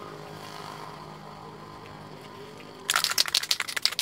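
A steady low hum, then about three seconds in an aerosol spray can of epoxy primer being shaken, its mixing ball rattling rapidly.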